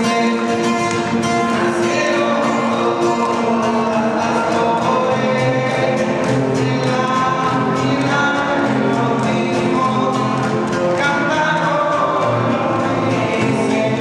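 A group of singers accompanied by acoustic guitars performs a song. Several voices sing together over steady guitar playing.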